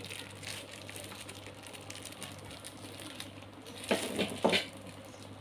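Plastic packaging wrap being handled, with faint rustling and two short, louder crinkles about four seconds in.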